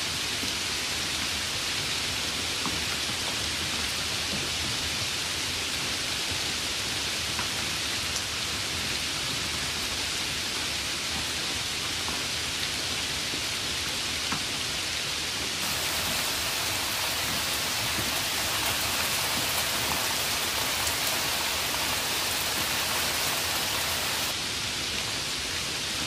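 Steady rain falling, an even hiss with no breaks. It turns a little louder and brighter for several seconds past the middle, then settles back near the end.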